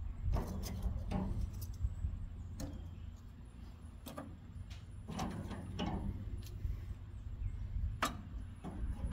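Hickory twigs being laid on burning charcoal briquettes in the steel side firebox of an offset smoker: scattered light knocks, clinks and scrapes of wood and coals against the metal, over a steady low rumble.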